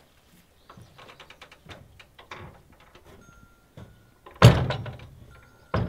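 Soft footsteps, then the shed's wooden door banging loudly a little over four seconds in with a short rattle after it, and a second knock near the end.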